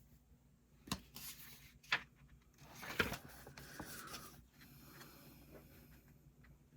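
Book being handled and a paper page turned: two soft knocks about a second apart, then a rustle of paper lasting a second or two, with a few small clicks after it.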